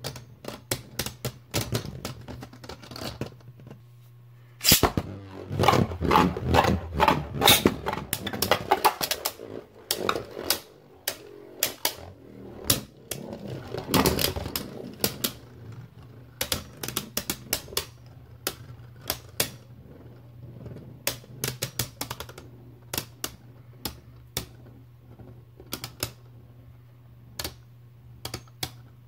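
Two Beyblade Burst spinning tops battling in a plastic stadium: sharp plastic clicks and clacks as they knock into each other and the stadium wall, in dense flurries about five to ten seconds in and again around fourteen seconds, over a steady low hum.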